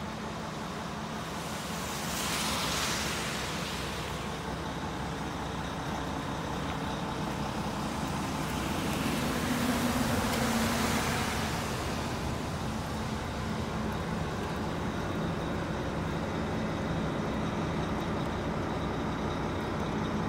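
Steady low hum of motor vehicles, with two vehicles passing: a short swell about two seconds in and a longer one from about eight to twelve seconds in.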